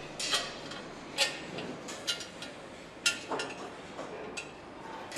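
Irregular sharp metallic clinks and clicks, about one a second, the loudest about three seconds in, over a faint steady hall background: metal parts and tools being handled at an engine assembly station.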